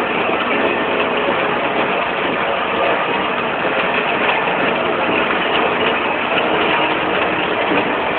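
Deutz-Fahr Agroplus tractor engine running steadily under load while driving a rotary hay tedder, heard from the tractor's cab.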